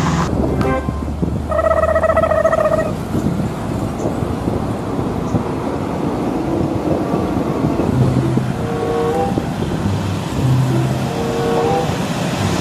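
Road traffic passing on a wide street: cars, a pickup and trucks driving by, with a horn-like tone sounding for about a second near the start.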